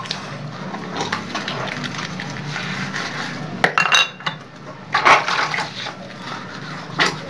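Dishes being washed by hand: steel plates and utensils clinking and scraping as soapy cups and a glass jug are scrubbed and handled, with a few sharper clanks about four and five seconds in and again near the end. A steady low hum runs underneath.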